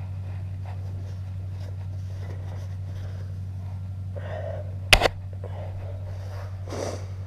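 A steady low hum throughout, with a single sharp knock about five seconds in and a couple of short breaths or sniffs from a person.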